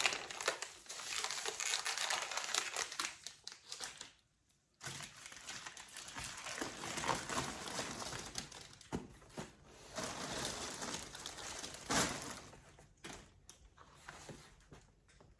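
Packaging crinkling and rustling as items are handled and unwrapped, stopping briefly about four seconds in, with a sharp tap about twelve seconds in.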